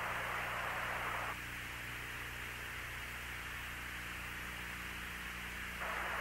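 Static hiss of an open mission radio loop with a steady low hum and no voice. The hiss drops in level about a second in and comes back up near the end.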